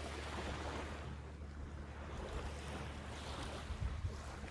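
A person taking slow, deep breaths, long airy inhales and exhales that swell and fade, as a settling-in before Kapalabhati breathing practice, over a low steady background hum.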